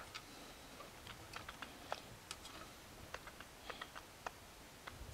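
Faint, irregular small clicks and taps from hands handling a printed circuit board and the wire leads being pushed into it.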